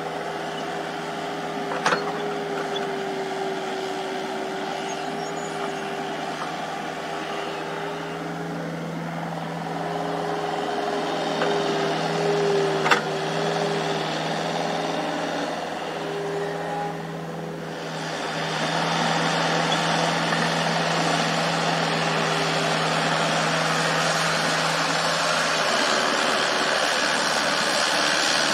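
Komatsu mini excavator's diesel engine running steadily, with the hum of its hydraulics as it digs. Two sharp clicks are heard, about two seconds in and near the middle. From just past halfway a louder, even rushing noise joins in.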